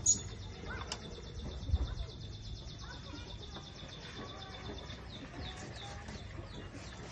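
Birds chirping in short downward-sliding notes in the second half, over a steady high-pitched buzz that stops about five seconds in. There are two sharp clicks in the first second and a low thud near two seconds in.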